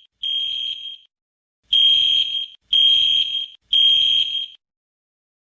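Fire alarm sounding a high-pitched electronic beep: one beep, a pause, then three louder beeps back to back, after which it stops.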